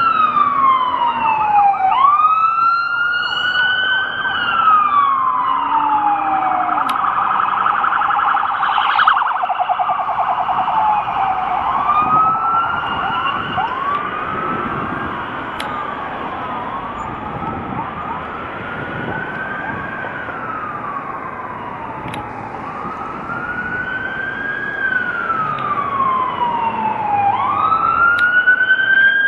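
Police car siren wailing, its pitch rising quickly and falling slowly about every five seconds. About a third of the way in it switches briefly to a rapid yelp, over steady city traffic noise.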